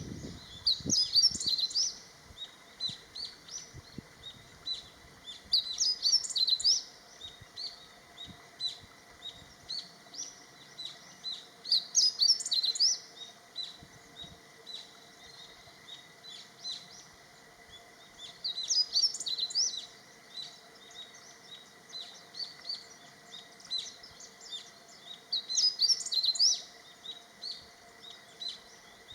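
Male meadow bunting singing its territorial song: five short, rapid phrases of high chirped notes, one about every six to seven seconds, with fainter chirps in between.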